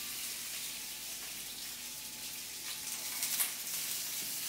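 Sliced sausage sizzling steadily in hot canola oil in a cast iron skillet on medium-high heat, with a couple of light knocks about three seconds in as more pieces are pushed off a cutting board into the pan.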